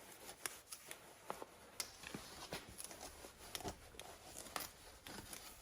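Rag wiping a primed plastic motorcycle headlight mask with grease remover: faint rubbing with irregular small clicks and taps as the part is handled.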